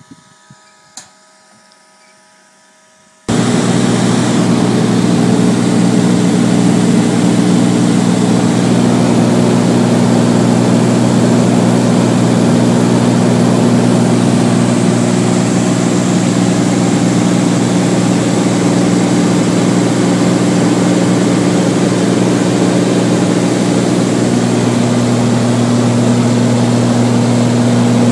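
A few faint clicks over a quiet background, then an abrupt cut about three seconds in to the steady drone of a Beechcraft Bonanza's piston engine and propeller heard from inside the cabin during a climb.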